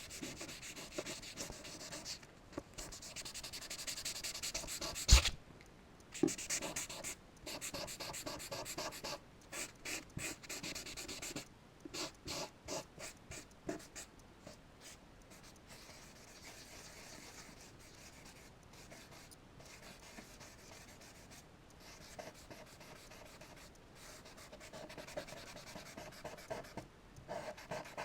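Charcoal scratching and rubbing across paper in a run of strokes, as a sketch is drawn and blended. A single sharp knock comes about five seconds in, and the strokes grow quieter in the second half.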